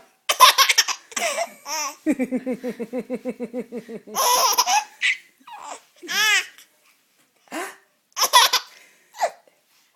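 Baby laughing in repeated fits, in response to an adult's fake sneezes. About two seconds in comes a long run of quick, rhythmic 'ha-ha-ha' laughs, roughly eight a second, followed by shorter bursts of laughter.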